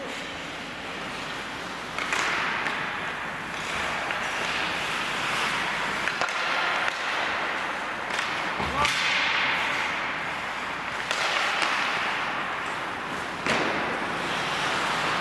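Ice hockey skates scraping and carving across the ice, the hiss rising suddenly a few times as players push off and stop, with sharp stick slaps and a thud a little before nine seconds in.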